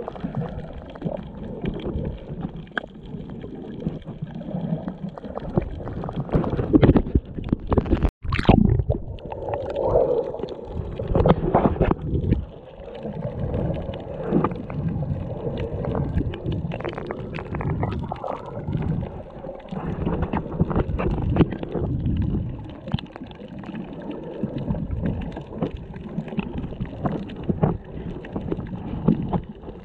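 Muffled underwater sound from a submerged action camera while snorkeling: irregular rushing, sloshing water with low rumbles and scattered clicks. About eight seconds in the sound cuts out for an instant, then comes a sharp crack.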